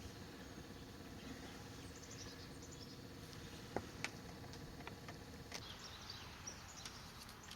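Quiet background ambience with a faint steady hum that stops about two-thirds of the way through, light high chirps, and two small clicks about four seconds in.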